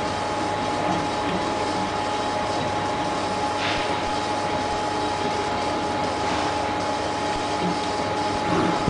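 Laser engraving machine with a wheel-type rotary head running: a steady mechanical hiss and hum with a constant whine.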